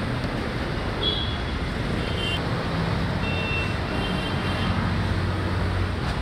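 Steady street traffic noise, with vehicle engines running and a few short high-pitched tones over it.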